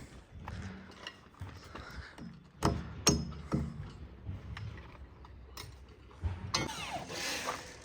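Construction work on a timber framing job: scattered knocks and clicks of tools and lumber being handled, with a louder, noisier burst about six and a half seconds in that lasts about a second.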